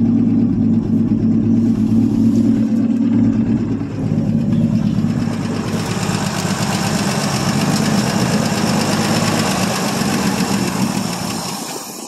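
A 1959 Ford F250's six-cylinder engine idling steadily, running again after sitting for three to four years. Its note dips briefly about four seconds in, and the sound fades away at the very end.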